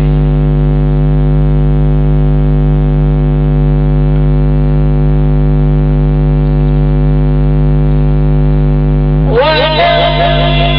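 Loud, steady electrical mains hum with many evenly spaced overtones. About nine seconds in, a man's voice begins a melodic, gliding chant over it, Quran recitation.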